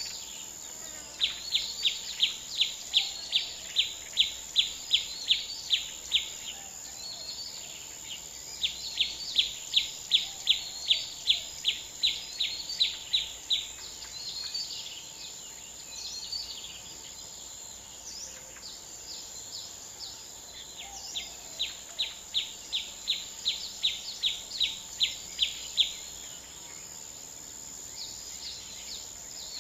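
Rural outdoor ambience: a steady high insect drone, with three bouts of a call repeated about four times a second, and scattered bird chirps between them.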